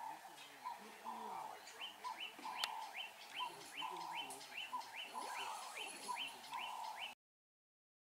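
Birds calling in the bush: a steady run of short rising chirps, about two to three a second, over a repeating lower note, cutting off suddenly about seven seconds in.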